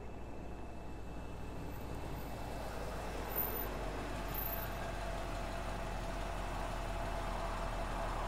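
A low, steady rumbling noise that grows gradually louder, with a faint steady hum coming in partway through.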